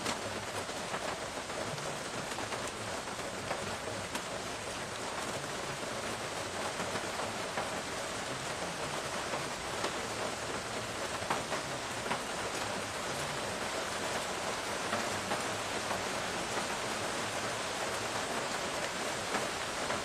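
Steady rain falling on pavement and leaves: an even hiss with scattered sharper ticks of single drops.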